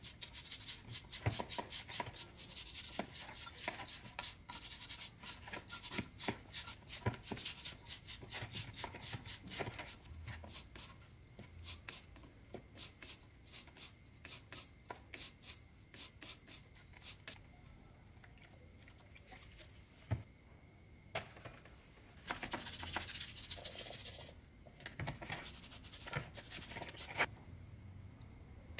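A stiff brush scrubbing an electric chainsaw's motor armature and cooling fan in a basin of cleaning liquid: quick rasping back-and-forth strokes, several a second at first, then sparser, a pause, and a short spell of fast steady scrubbing about three-quarters of the way through.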